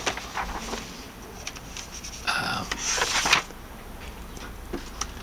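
Pages of a hardcover book being turned by hand: paper rustling and brushing in a few short bursts, the loudest about three seconds in.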